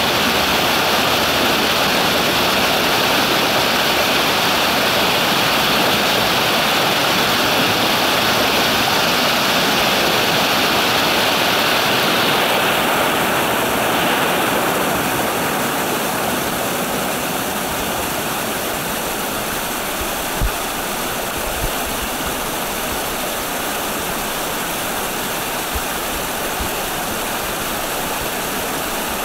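Stream water rushing and splashing over rocks in a small cascade, a steady rush that turns slightly softer and less hissy about halfway through, with a couple of brief low bumps after that.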